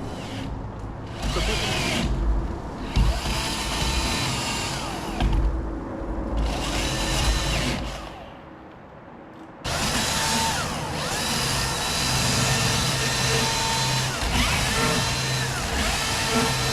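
Electric chainsaw running in stretches, cutting into oak, with a pause of about a second and a half near the middle before it starts again abruptly.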